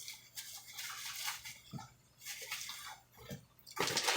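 Intermittent rustling and handling sounds in short bursts, with a louder, longer rustle just before the end.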